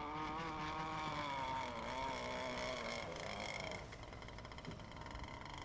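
Radio-controlled racing boat engine whining out on the water, its pitch wavering and dropping, growing fainter after about four seconds.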